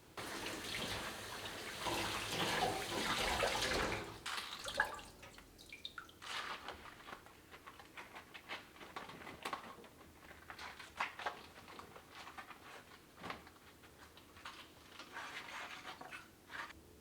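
Kitchen tap running into the sink for about four seconds, then shut off. After that come scattered clinks and knocks of dishes being washed and handled, with a little running water again near the end.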